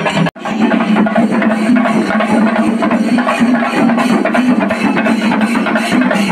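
Loud temple-festival procession music with a steady, slightly wavering drone under busy percussion and crowd sound. It cuts out for an instant about a third of a second in, then carries on.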